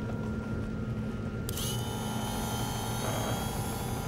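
Layered sound-design drone: a steady low rumble like a vehicle running, joined suddenly about a second and a half in by a cluster of high, shrill tones that hold on.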